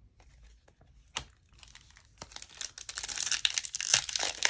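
Light clicks of trading cards being handled. From about halfway, a foil trading-card pack wrapper is torn open and crinkled, the crackling getting louder towards the end.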